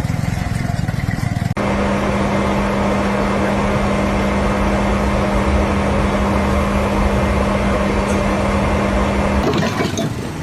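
Heavy machinery running steadily with a constant hum; the sound cuts abruptly to a different machine noise about one and a half seconds in, and changes again near the end.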